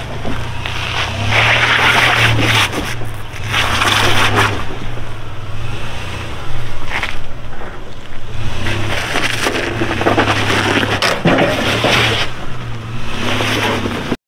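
V8-swapped Toyota 4Runner rock crawling: the engine runs low and steady while the tyres grind and crunch over rock in repeated bursts. The sound cuts off suddenly at the end.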